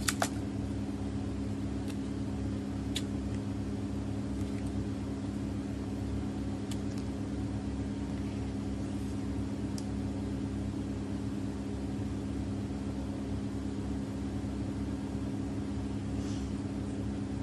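A steady low machine hum, with a few light sharp clicks from small plastic and paper packaging being handled; the loudest is a double click at the very start.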